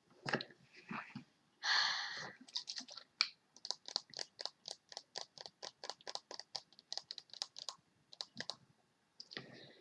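Rapid light tapping at about six taps a second, after a short hiss about two seconds in: ASMR tapping, most likely fingernails on a product's packaging.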